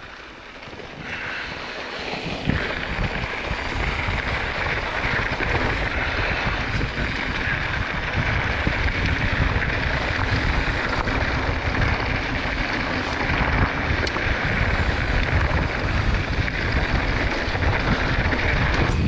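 Wind blowing across the microphone and the rumble of knobby mountain-bike tyres over a rocky dirt trail, getting louder over the first few seconds as the bike picks up speed, with a steady high buzz above it.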